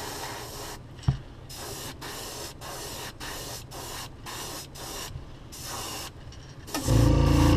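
Airbrush hissing as it sprays gold paint in a run of short passes, the air cutting off briefly between them. Near the end a motor starts with a loud, steady hum that drowns out the hiss.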